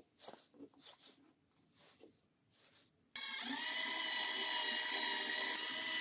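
Soft knocks of wooden slats being shifted into a square frame, then about three seconds in a power drill starts suddenly and runs at a steady whine, driving a screw into a corner of the wooden frame.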